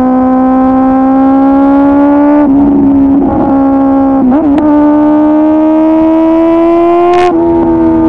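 2009 Kawasaki ZX-10R's inline-four, remapped and on a full exhaust, pulling steadily under load with its note rising slowly. The pitch dips briefly about two and a half seconds in, again around four seconds, and near the end.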